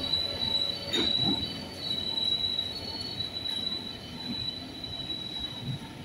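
Wheels of a rake of loaded ballast hopper wagons squealing as a freight train rolls past, a high steady squeal over the rumble of the wagons. There is a metallic knock about a second in, and the noise fades slowly as the train moves away.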